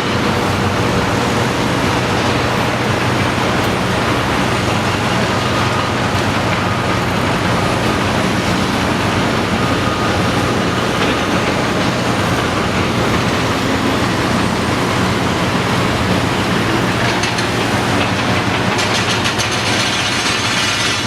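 Caterpillar 330D L excavator's six-cylinder diesel running steadily under working load. A fast rattling joins near the end.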